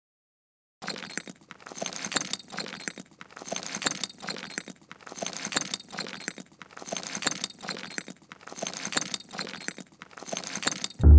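Crunching, crackling sound effect repeating in clusters about once a second, with a silent second before it starts.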